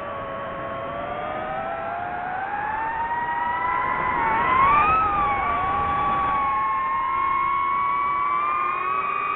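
DJI FPV quadcopter's motors and propellers whining in several close pitches. The pitch rises over the first few seconds as the drone speeds up, wavers about halfway through where it is loudest, then holds steady at a higher pitch.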